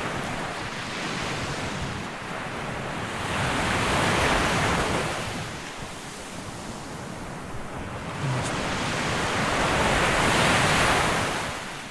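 Surf washing onto a sandy beach, with two waves swelling and fading about six seconds apart, and some wind on the microphone.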